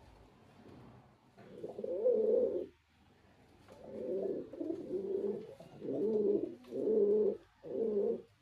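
Male domestic pigeon cooing: one coo about a second and a half in, then a run of four or five coos in quick succession through the second half.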